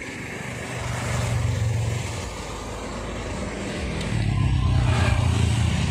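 Motor vehicles passing on a road, a low engine rumble that swells about a second in and again from about four seconds.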